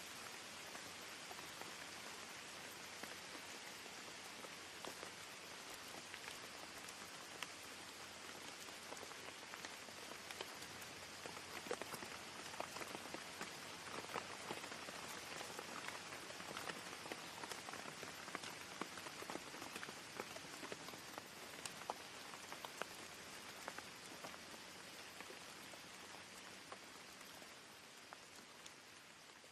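Steady rain: an even hiss of falling rain dotted with scattered ticks of single drops, growing fainter in the last few seconds.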